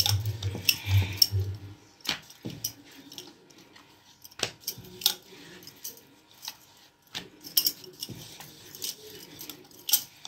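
Bangles clinking on a wrist as a wooden rolling pin rolls out paratha dough on a wooden board: irregular sharp little clinks throughout, with a low hum for the first two seconds or so.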